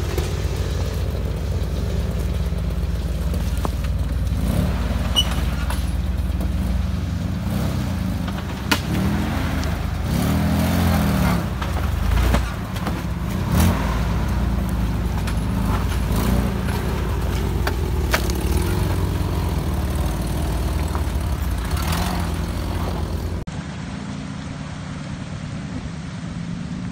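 1988 Nissan Pathfinder's engine pulling at low speed as the truck crawls over rocks, revving up and down in several swells near the middle, with a few sharp knocks. Near the end the sound changes to a steady rush of water as the truck wades through a creek.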